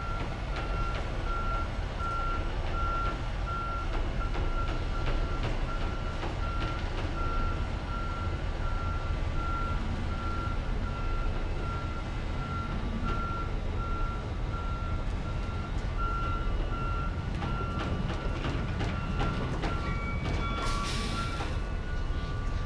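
A tractor-trailer backing up: its reversing alarm beeps at an even pace over the low, steady running of the diesel engine. Near the end there is a short hiss of air as the air brakes are applied, and the beeping stops.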